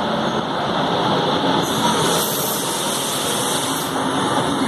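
Electric passenger train arriving at a station platform, rolling past close by with a steady rumble of wheels and traction equipment. A brighter hiss joins in from about halfway through for two seconds.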